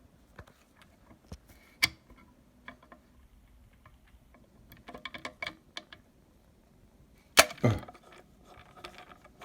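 Scattered sharp clicks and light ticks of small screws and a screwdriver being handled on the metal housing of a microscope phototube. There is a cluster of ticks about five seconds in and a loud click near the end.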